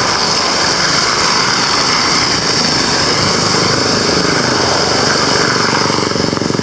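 Steady street traffic: a vehicle engine running close by with a fast, even buzz, over a general hiss of traffic.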